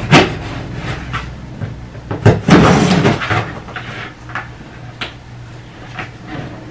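Large cardboard shipping box being opened by hand: a sharp knock at the start, a loud rasp of tape and cardboard being pulled and torn about two seconds in, then scattered small knocks and rustles of the flaps.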